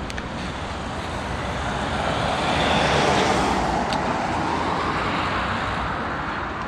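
A car passing on the road, its tyre and engine noise swelling to a peak about three seconds in and then fading away.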